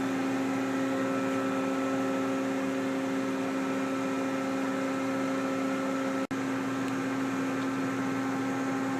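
Steady mechanical hum with several steady tones over a noise haze, broken by a brief sudden dropout about six seconds in.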